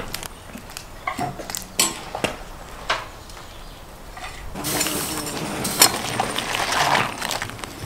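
Metal skimmer clinking and scraping against a large black cauldron as cooked crawfish are scooped out onto a plate. A few separate clinks in the first three seconds, then busier clattering over a steady hiss from a little past halfway.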